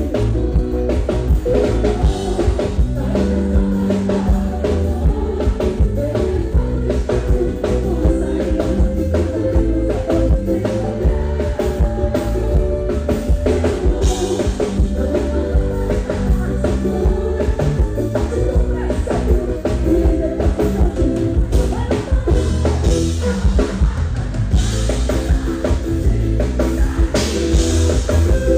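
Live band playing Brazilian calypso through a concert PA: a steady drum beat with heavy bass and guitar, and a woman singing into a microphone over it.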